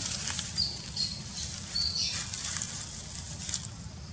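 Dry leaves and grass rustling and crackling as a newborn macaque squirms on them against its mother. There are a few short, high-pitched chirps in the first two seconds.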